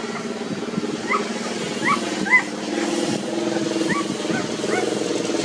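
Nursing puppies, about 17 days old, making short rising squeaks and whimpers, scattered several to the second, over a steady low hum that grows louder about three seconds in.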